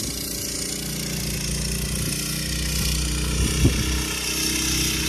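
A large minibike's 6.5-horsepower single-cylinder engine running steadily under heavy load as the bike labours up a hill on tall 5x straight-chain gearing; the clutch is slipping and overheating. One brief knock about three and a half seconds in.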